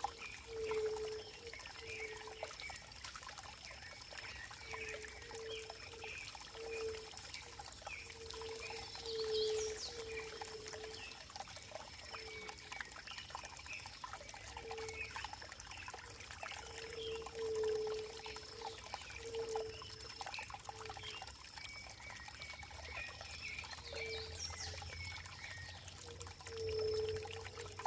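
Running water trickling and splashing steadily, with many small droplet splashes and a few brief louder surges.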